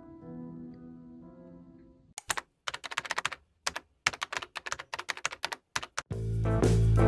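Soft background music fades out, then rapid keyboard-typing clicks run for about four seconds against silence. Louder music with guitar starts near the end.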